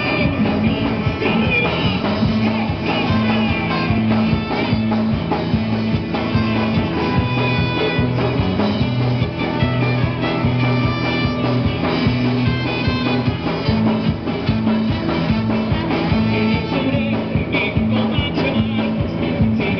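Live rock band playing an upbeat number, with electric guitar, trombone and keyboard and a male singer on a microphone.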